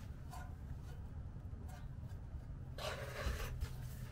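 A person's strained breath, a breathy exhale about three seconds in, while heaving on a breaker bar against a stuck brake caliper bolt that does not break free, over a low steady hum.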